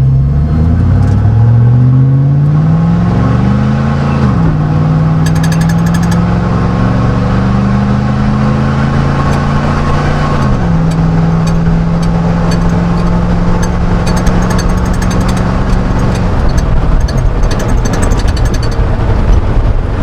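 5.3L LM7 V8 of a 1999 Chevrolet Silverado running through a Cherry Bomb muffler, heard inside the cab. It accelerates with the pitch climbing and dropping at two upshifts, about 4 and 10 seconds in, holds a steady cruise, then eases off about 16 seconds in.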